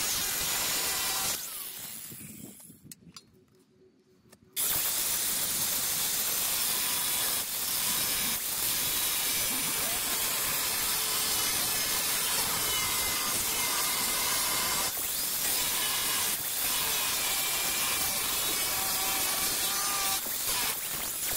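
An angle grinder with a cut-off wheel cutting through a Ford Ranger's steel frame rail, with a loud, steady grinding hiss. A little over a second in it winds down and goes quiet, then comes back abruptly at about four and a half seconds and keeps cutting.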